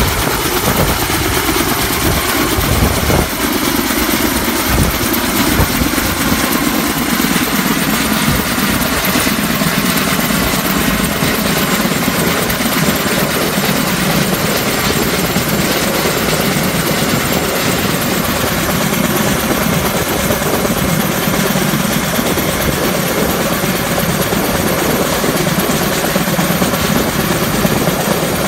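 Kaman K-MAX intermeshing twin-rotor helicopter, with its single turboshaft engine, hovering with a load on its longline. Its rotors and turbine run loud and steady throughout.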